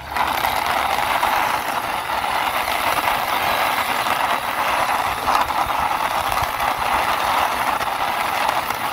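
Plastic wheels of a toy car rolling and grinding over a rough concrete ledge as it is pushed by hand: a steady gritty rattle.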